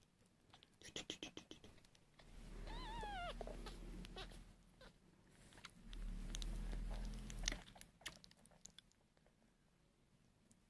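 Newborn sphynx kitten suckling at a bottle teat: a quick run of wet sucking clicks about a second in, then a short, high, wavering mew that falls away near three seconds in. Low purring comes in two stretches of a couple of seconds each, with scattered sucking clicks between.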